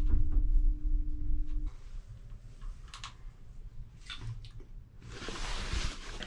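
Gondola cable car cabin running along its cable: a low rumble with a steady hum that cuts off abruptly about a second and a half in. After that the cabin is quieter, with a few faint clicks and a short rush of noise near the end.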